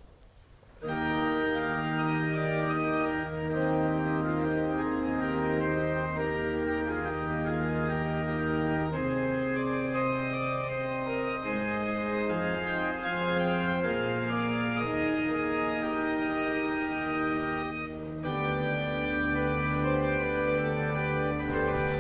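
Organ playing a slow piece in full held chords over a pedal bass line, coming in about a second in. There is a short break between phrases near the end.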